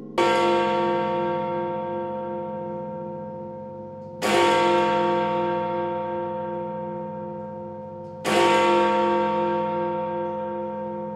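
Big Ben, the hour bell of the Westminster clock tower, striking eleven o'clock: three strokes about four seconds apart, each ringing on and slowly dying away before the next.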